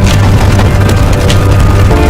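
Loud music with a steady heavy bass, held tones above it and a couple of sharp percussive hits.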